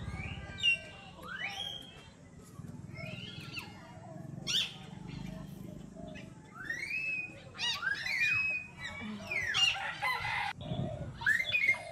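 A string of short, high-pitched animal calls, chirps and squeals that rise and fall in pitch, coming thicker in the second half, over a faint low hum.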